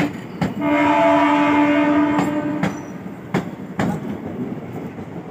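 Locomotive horn of the 14124 Pratapgarh Intercity Express sounding once for about two seconds, a steady tone whose lowest note trails off last. Around it, train wheels clack over rail joints in pairs.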